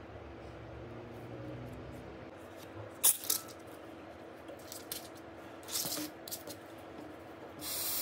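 Small hard clicks and taps of a smartphone and repair tools being handled on a work surface: two sharp clicks about three seconds in, then lighter taps and short rustles, over a faint steady hum.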